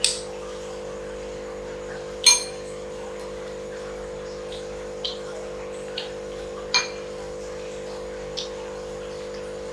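A few sharp clinks of dishes and glassware on a glass-topped table, the loudest about two seconds in and again near seven seconds, each ringing briefly, with lighter ticks in between. A steady low hum runs underneath.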